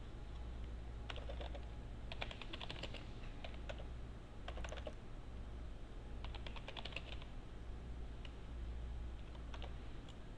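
Computer keyboard typing in several short bursts of keystrokes with pauses between them, as terminal commands are typed and entered. A low steady hum lies underneath.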